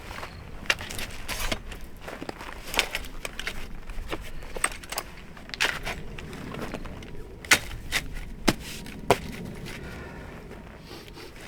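A series of irregular sharp clicks and knocks, a few of them loud, over a faint steady background.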